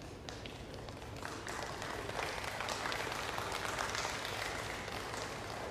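Audience applause: a few scattered claps at first, then a fuller round of clapping from about a second and a half in that swells and then thins out near the end.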